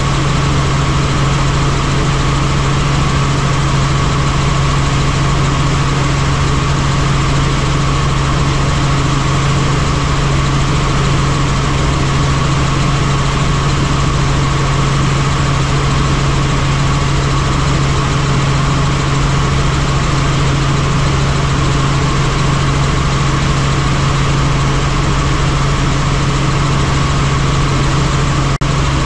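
Helicopter in flight: a loud, steady, unchanging drone with a low hum and a fainter higher whine over a constant rush of noise.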